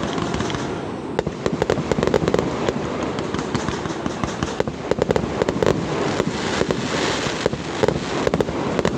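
Super-large starmine firework barrage: aerial shells bursting in rapid succession, many sharp bangs a second running together with crackle.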